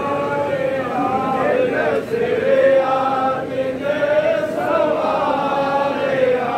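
Sikh devotional chanting by a group of male voices singing together, drawn-out notes that slide up and down, with a brief break about two seconds in.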